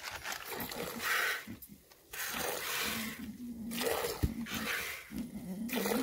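An animal eating: noisy chewing bursts about once a second, with a short low grunt-like sound twice.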